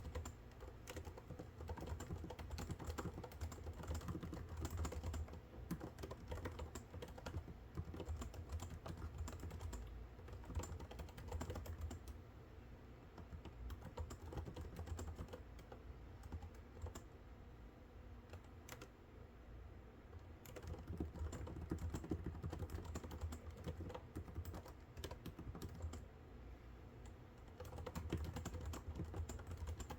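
Typing on a computer keyboard: a quick, uneven run of key clicks that thins out and grows quieter for a stretch in the middle, over a steady low hum.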